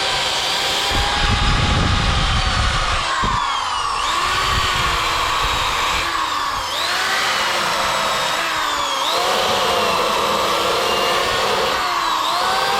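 An electric drill spinning a wire wheel brush against the body steel, stripping seam sealer. The motor whines steadily and its pitch dips and recovers several times as the brush is pressed in, over a scratchy rasp of bristles on metal.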